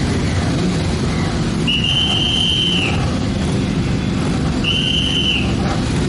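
A group of motorcycles idling together on a starting grid, a dense, steady low rumble. Over it a whistle is blown twice: a long blast of about a second, then a shorter one about three seconds later.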